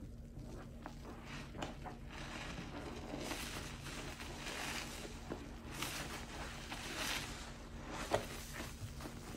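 Soapy foam sponge squeezed and kneaded by hand in a basin of suds: wet squelching and crackling foam in uneven swells, with a sharper squish about eight seconds in.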